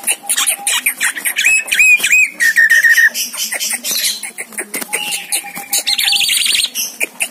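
Javan myna (jalak kebo) calling: dense clicks and chatter, a few short whistled notes followed by a quick run of repeated notes, and a rapid trill about six seconds in.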